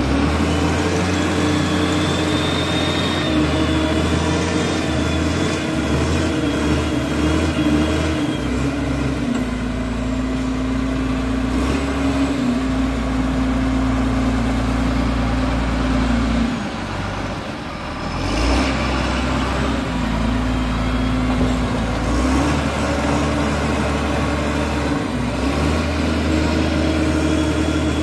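Foton wheel loader's diesel engine running under load, its note rising and falling as the machine drives and works the bucket. The engine dips briefly about two-thirds of the way through and then picks up again, with a faint high whine over it in the first several seconds.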